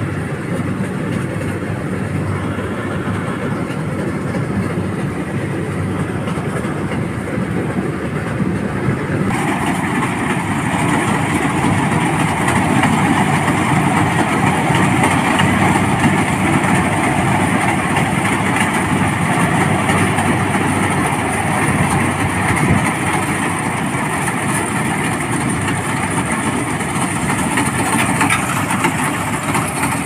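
Rice combine harvester running as it cuts the crop, a steady engine and machinery noise. About nine seconds in, the higher part of the sound grows louder.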